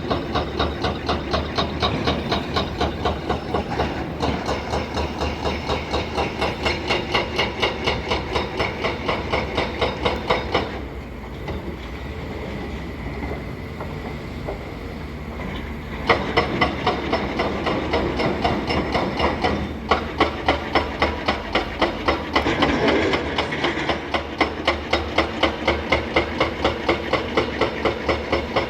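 Excavator at work: the machine runs with a steady, rapid clatter of about three to four beats a second, which eases off for about five seconds midway and then resumes.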